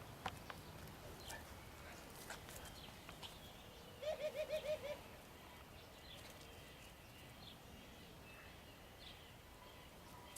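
A farm animal's short quavering call about four seconds in, six quick pulses in under a second, over faint scattered bird chirps.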